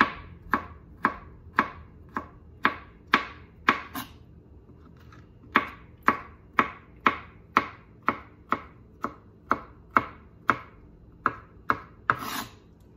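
Chef's knife chopping a dill pickle on a plastic cutting board: sharp, even strikes about two a second, pausing for a second or so partway through, then resuming. Near the end there is a brief scrape of the blade across the board.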